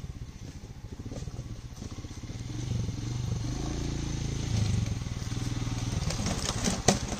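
Royal Enfield Himalayan's 411 cc single-cylinder engine running at low revs as the motorcycle rides slowly over rough rock, growing louder as it approaches. A few sharp clicks come near the end.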